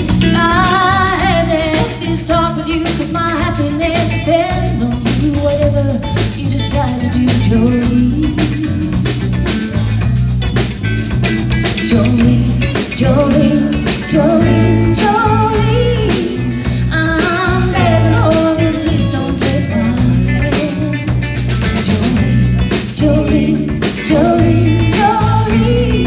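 Live band playing a song: a woman sings lead into a microphone over electric guitar, electric bass guitar and a drum kit.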